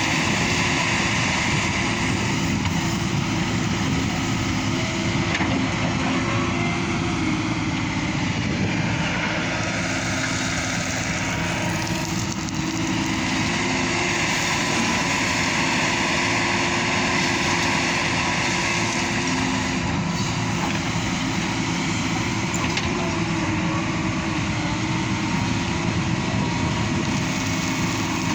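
Hyundai 220LC hydraulic excavator's diesel engine running steadily under working load, with a higher whine that dips and rises again about eight to ten seconds in.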